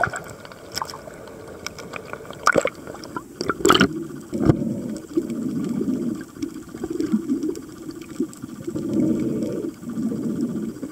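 Water gurgling and sloshing as picked up by a camera held underwater, in uneven swells, with a few sharp clicks in the first four seconds.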